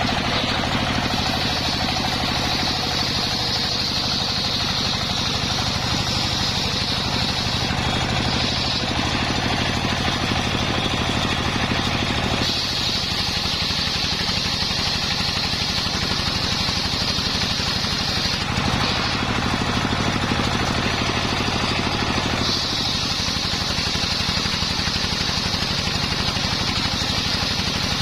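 Homemade engine-driven circular saw running steadily while cutting a coconut trunk. A high whine sits over the engine and breaks off briefly every few seconds.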